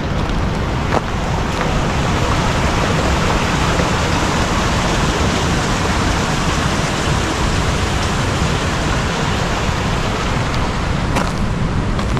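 Steady, loud rushing noise with a heavy low rumble, unbroken throughout, with a faint click about a second in.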